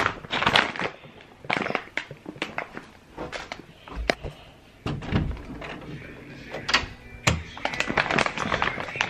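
Handling noise of a hand-held phone carried while walking: irregular clicks, knocks and rustles, with dull thuds about five and seven seconds in.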